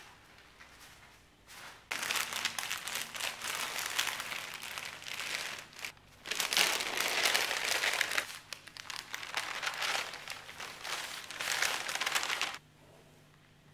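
Baking paper crinkling and rustling as it is handled and peeled back off a freshly waxed cotton beeswax wrap. It starts about two seconds in, pauses briefly near the middle, and stops shortly before the end.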